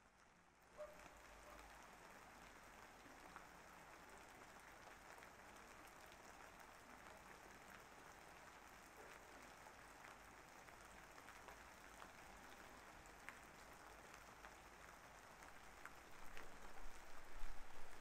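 Steady rain falling, an even hiss with scattered drop patters, setting in about a second in and growing louder and more uneven near the end.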